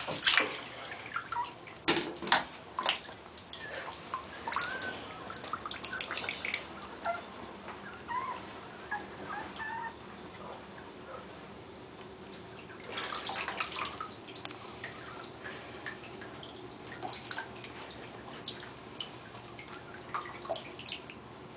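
Water dripping and splashing as a wet Maltese puppy moves about in shallow bathwater, with a few faint, short, high whimpers from the puppy and a louder stretch of splashing about thirteen seconds in.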